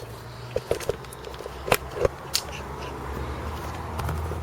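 Handling noises: a few scattered sharp clicks and knocks over a low steady hum.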